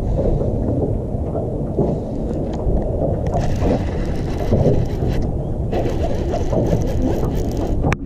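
Wind buffeting a body-mounted camera's microphone: a loud, steady low rumble, with a sharp click near the end.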